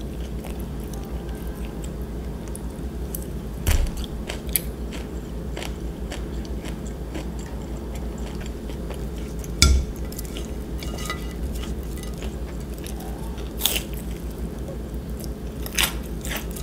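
Close-miked chewing and biting of food, with a few sharp taps of wooden chopsticks against a ceramic plate, the loudest about four seconds in and near the middle. A steady low hum runs underneath.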